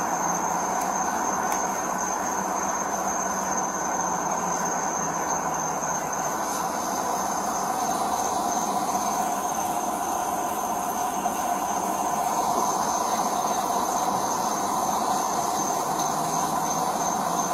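Steady roadside background noise picked up by a police body-worn camera: a constant hum and hiss with a thin, high-pitched steady tone over it, unchanging throughout.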